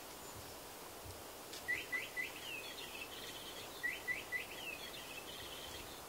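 A small songbird sings the same short twittering phrase twice. Each phrase opens with three quick upslurred notes and runs into a faster twitter and trill, over a faint steady hiss.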